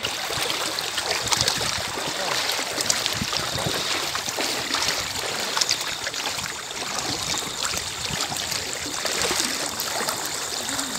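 Floodwater splashing and sloshing around an inflatable rubber rescue boat as it is pushed by hand through the water: a steady rushing with many small splashes.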